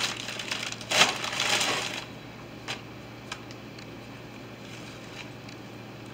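Plastic bag of flour tortillas crinkling as it is handled, for about two seconds, then only a few faint soft taps as the tortillas are handled.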